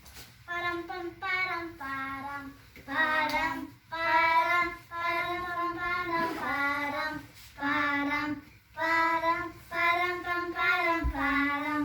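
Children singing a song's main melody without the words, in held notes with short breaks between phrases.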